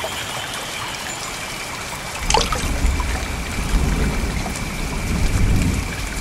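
Trickling, flowing water as a sound-effect ambience, with a thin steady high tone above it. About two seconds in there is a light click, and a low rumble joins the water and carries on.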